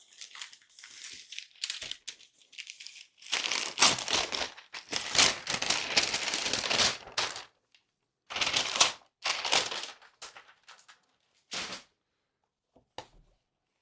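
Packaging being unwrapped and handled, crinkling and rustling in several bursts: a long stretch from about three to seven and a half seconds in, then a few short ones.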